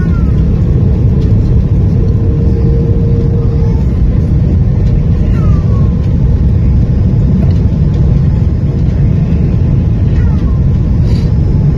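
Steady cabin noise of an Airbus A330-300 airliner in flight: a loud, even, deep rumble of engines and rushing air.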